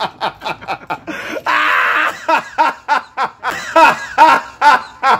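A man laughing loudly in a long run of quick, rhythmic 'ha-ha' bursts, with a brief noisier, breathier stretch about a second and a half in.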